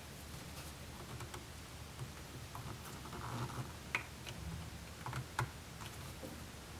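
Faint scattered clicks and taps, with a few sharper ticks in the second half, as a thin horseshoe shim is handled and worked into the gap beside a window frame to level it.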